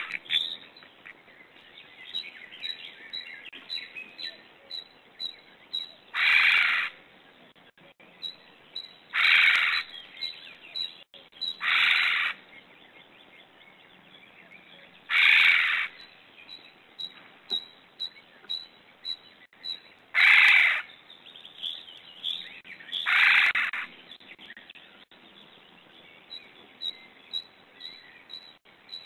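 A loud, harsh bird call repeated six times, two to five seconds apart, each lasting under a second, which the uploader wonders may be a crane's. Faint, quick chirps of small birds run underneath.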